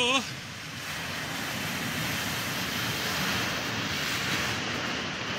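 Ocean surf: a wave breaking and its foam washing in over rocks and cobbles, a steady rush that swells to its loudest around three to four seconds in, then eases off.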